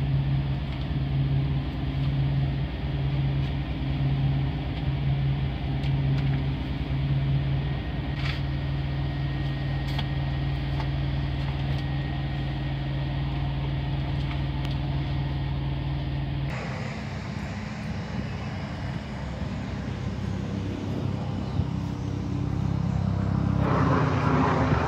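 Engine and road noise inside a moving truck's cab: a steady low drone with a hum that throbs about once a second. About two-thirds of the way through it cuts abruptly to a rougher, noisier rumble.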